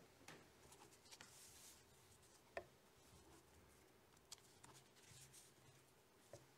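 Near silence in a quiet room, broken by a few faint, sharp clicks and small handling noises.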